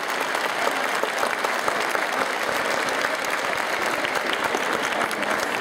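Audience applauding steadily: many hands clapping at once in a dense patter.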